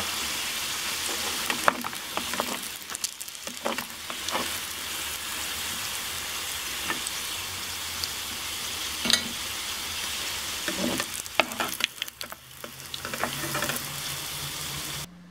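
Potato patties sizzling as they fry in oil in a pan, with sharp clicks and scrapes of a metal spatula against the pan as the patties are lifted out. The sizzling cuts off just before the end.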